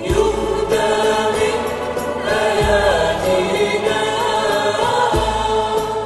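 Choir singing a slow sacred piece over a sustained low accompaniment, the bass note changing about every two and a half seconds.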